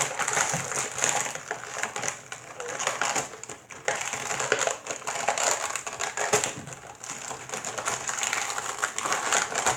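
Plastic toy packaging crinkling and crackling without a break as toy pieces are worked out of it, with many small clicks.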